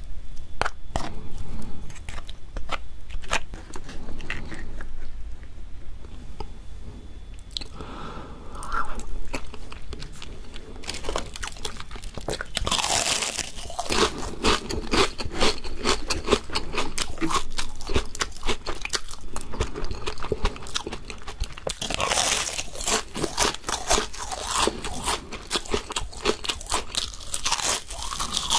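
Close-miked eating: soft chewing of soy sauce marinated raw crab and rice, then loud, dense crackling crunches of fried laver seaweed chips (gim bugak) being bitten and chewed, in two long stretches about halfway through and near the end.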